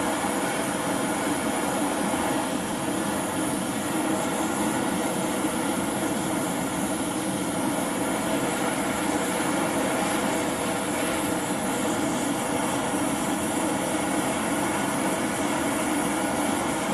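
High-temperature LPG/propane torch burning steadily, its flame making an even, unchanging rushing noise as it heats the work for silver soldering.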